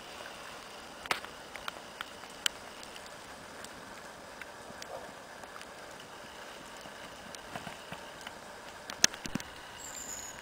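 Footsteps through leaf litter and dry twigs, with irregular cracks and snaps as sticks break underfoot; the loudest snaps come about a second in and near the end. A brief high chirp sounds just before the end.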